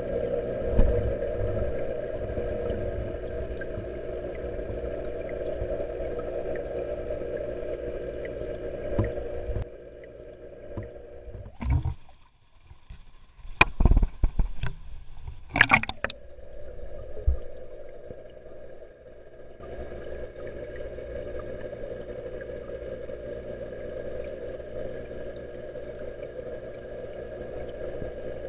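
Koi pond waterfall running steadily, splashing into the pond. It breaks off for about ten seconds partway through, when a few sharp knocks and bumps are heard, then comes back.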